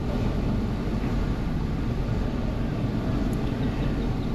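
Hyundai direct-injection engine idling roughly with misfires, an uneven low rumble with a faint fast ticking over it. The mechanic suspects retarded cam timing from a variable valve timing problem, which he puts down to dirty oil.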